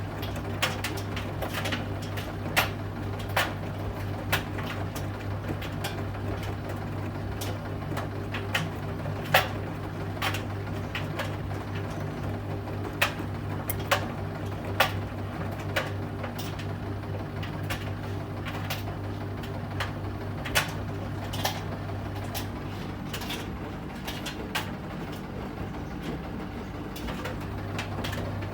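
Bosch Serie 8 front-loading washing machine in its main wash: the drum motor hums steadily while the tumbling load makes irregular sharp clicks and knocks against the drum.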